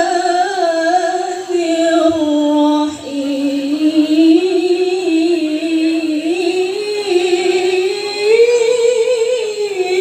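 A woman reciting the Qur'an in the melodic tilawah style (qiraah) into a microphone, drawing out long ornamented notes with a wavering pitch. She takes a short breath about three seconds in, and her voice climbs higher near the end.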